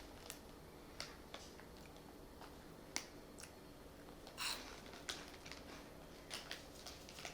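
Faint, crisp crunching of someone chewing crunchy ball-shaped Cheetos, heard as scattered short clicks and crackles.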